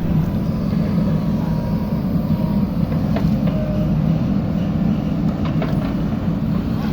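JCB 3DX backhoe loader's diesel engine running steadily under work, with a few faint knocks a few seconds in.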